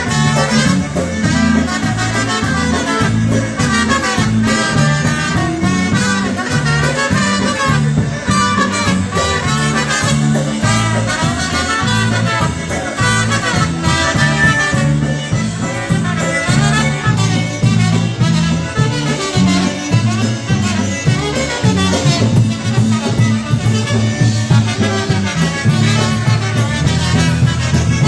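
Live polka band playing an instrumental stretch of a polka over a steady, bouncing bass beat.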